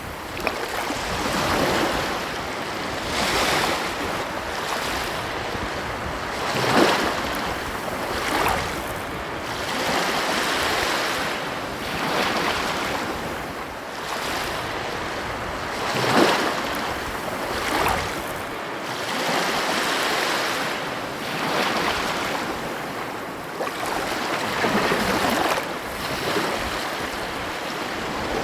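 Ocean waves breaking and washing on a beach: a steady rush of surf that swells and falls every few seconds, with a few sharper crashes, and some wind on the microphone.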